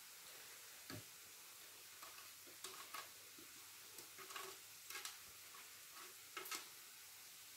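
Boiled beetroot grated on a metal box grater over a plate: a string of short, faint scraping strokes from about two and a half seconds in, after a soft knock about a second in.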